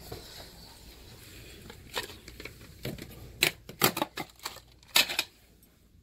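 Cardboard and plastic packing being handled: a run of short, sharp clicks and crinkles between about two and five seconds in.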